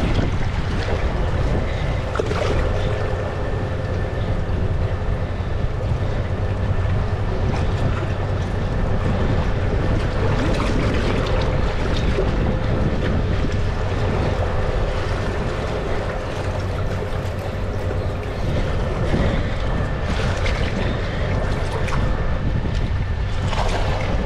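Wind buffeting the microphone over sea water lapping and sloshing among shoreline rocks, with a steady low hum underneath and a few brief splashes, one right at the start and more near the end.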